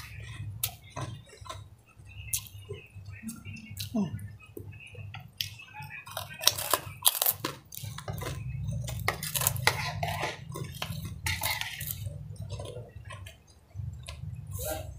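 Close-up eating sounds: crunchy crackers being chewed with many sharp crackling bites, and a metal fork and spoon clinking against a ceramic bowl of instant noodle soup, over a steady low hum.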